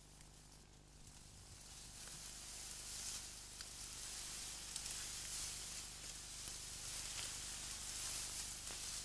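Tall grass rustling: a high, steady hiss that swells over the first few seconds and then holds, with a few faint ticks.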